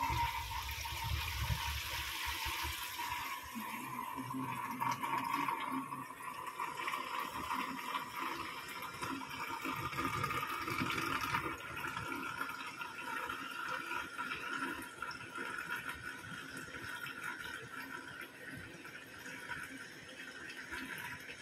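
Water draining from a stainless steel kitchen sink, swirling and gurgling down the plughole into the drain hose. It is loudest at first and slowly fades as the sink empties.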